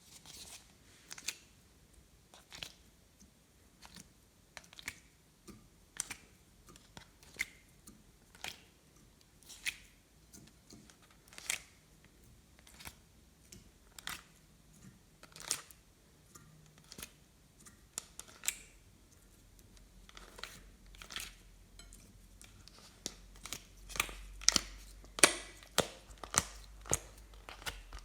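Glossy slime being handled and pressed, giving crisp pops and clicks about once every second or so. They come faster and louder near the end.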